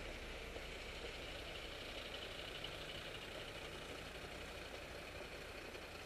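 Steady city street traffic noise, car engines running in the lanes alongside, heard from a bicycle riding along a bike lane, with a steady hiss over it.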